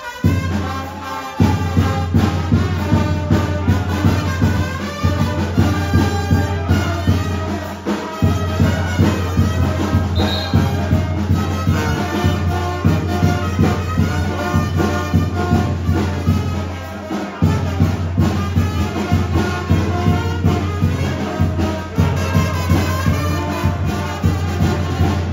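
Music led by brass instruments over a steady, pulsing bass beat.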